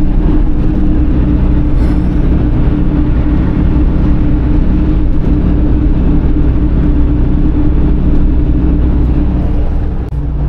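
Car engine and road noise heard from inside a moving car, a steady drone that dips briefly just before the end.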